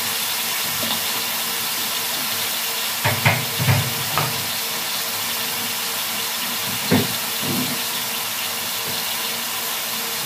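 Carrots and sliced hotdogs sautéing in an aluminium pot, giving a steady sizzle, with a few low thumps about three seconds in and again near seven seconds.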